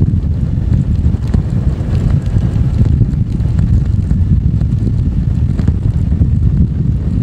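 Wind rumbling on the microphone of a camera on a Zero FX electric motorcycle riding along a dirt track. The electric drive gives no engine note, and there are a few knocks.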